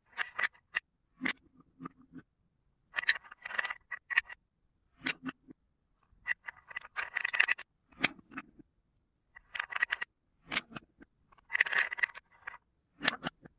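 Small hollow toy cups and blocks knocking and scraping against each other in about a dozen short clattering bursts, roughly one a second, with a light hollow ring.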